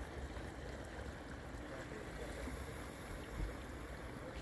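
Hot spring water flowing steadily over rocks, an even rushing sound.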